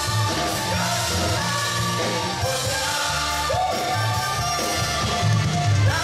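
Live band playing an upbeat pop-rock song with a steady driving bass beat, and a singer's voice over the music.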